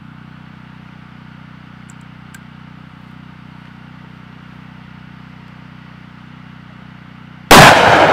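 A single shot from a Desert Eagle .50 AE pistol near the end: one sharp, very loud crack followed by a trailing echo.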